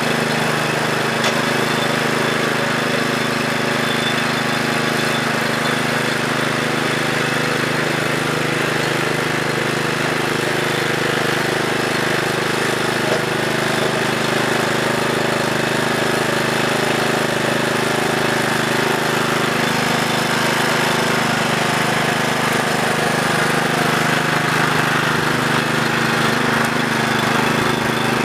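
Walk-behind brush hog mower's engine running steadily as the mower is pushed through grass and weeds.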